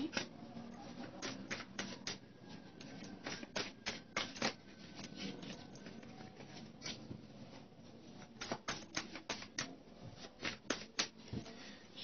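Tarot cards being shuffled and handled: irregular clusters of sharp clicks and snaps, with short pauses between them.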